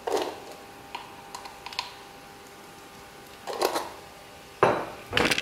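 Salt rattling out of a glass shaker jar into a wok: several short bursts of quick clicking as the jar is shaken, the last two near the end the loudest.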